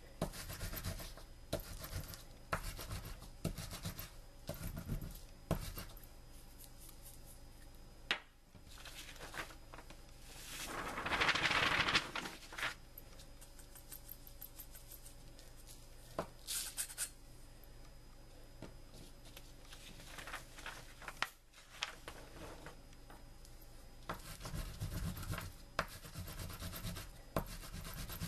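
Match heads being crushed and ground into powder under a battery on paper, in short repeated scraping and rubbing strokes. A louder rustling noise lasts about two seconds near the middle, and a few sharp clicks fall between the strokes.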